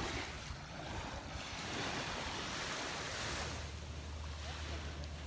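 Small, calm Gulf waves lapping and washing up the sand at the shoreline, swelling once in the middle, with a low wind rumble on the microphone.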